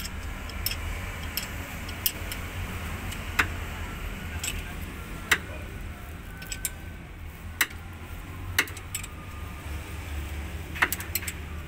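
A combination wrench turning a thread-cutting tool in a damaged cylinder-head bolt hole of an engine block, in short strokes: sharp, irregular metal clicks every second or two from the wrench and tool, over a steady low hum.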